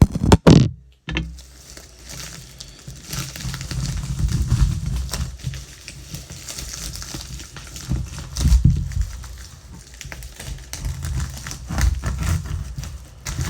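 Parcel packaging being torn open and plastic wrapping crinkled by hand, with irregular crackling and rustling and low bumps of handling throughout, and a loud bump just after the start.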